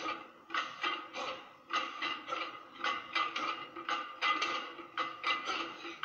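A bodybuilder's fast, forceful breaths and grunts, about three a second, as he strains through leg extensions at maximum effort. Heard as played back from a screen.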